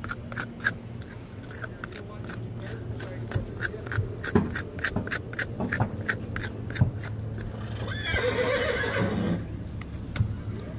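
Farrier's driving hammer tapping horseshoe nails through a shoe into a horse's hoof: a quick even run of light taps, about four a second, that thins out to scattered taps. About eight seconds in, a horse whinnies for over a second.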